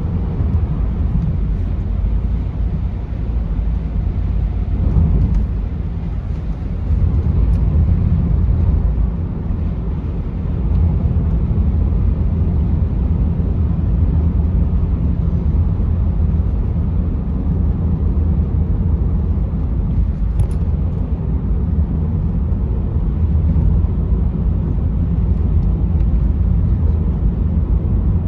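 Steady low rumble of a car driving, with road and engine noise.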